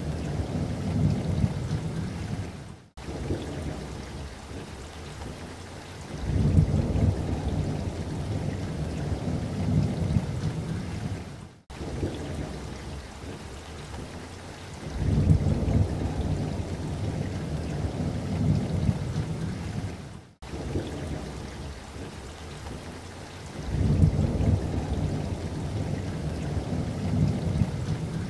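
Rain falling, with low rolling thunder that swells and fades roughly every nine seconds. Each repeat is broken by a brief, abrupt cut-out, the pattern of a short storm recording played in a loop.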